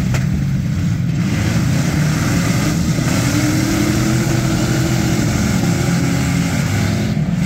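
Several gutted demolition-derby cars' V8 engines running together, a loud steady rumble, with one engine's pitch rising and easing off as it is revved near the middle.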